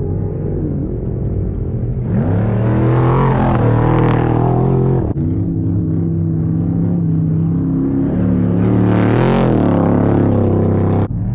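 Off-road race vehicle engines running at steady revs, the note rising and dipping briefly a few times. The engine sound changes abruptly about two and five seconds in.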